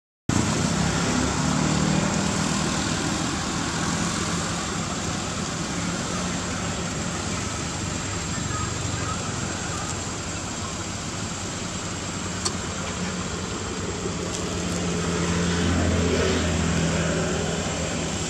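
Steady road traffic noise with a low vehicle engine hum that swells as a vehicle passes about three-quarters of the way through. A single sharp click comes a little past the middle.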